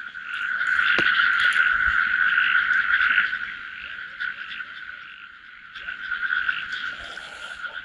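A dense chorus of many frogs calling together, a steady high-pitched massed croaking, louder for the first three seconds and swelling again near the end. A single sharp click about a second in.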